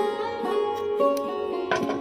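Background music on a plucked string instrument like a sitar, with sustained, bending notes.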